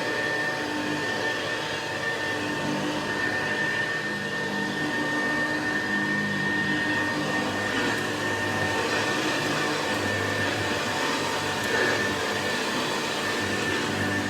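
Vintage Hoover 707 upright vacuum cleaner running steadily, its motor giving a continuous high whine over the airflow noise.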